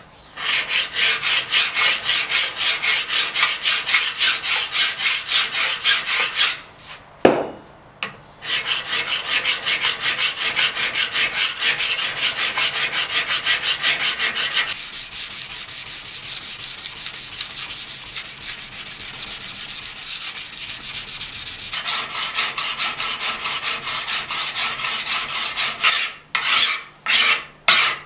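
Hand file rasping back and forth over the steel blade of a drawknife in quick, even strokes, with a pause and a single click about seven seconds in. Near the end the strokes become slower and more separate.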